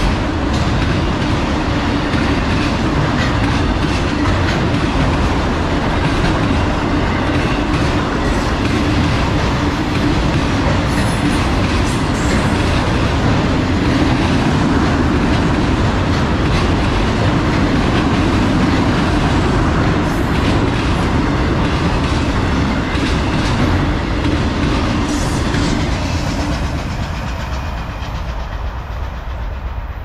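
Empty autorack cars of a freight train rolling past on the rails: a steady, loud run of car and wheel noise that dies away over the last few seconds as the end of the train goes by.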